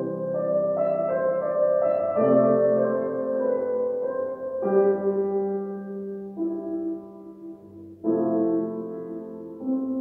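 Grand piano played slowly: sustained chords struck roughly every two seconds, each left ringing and fading before the next.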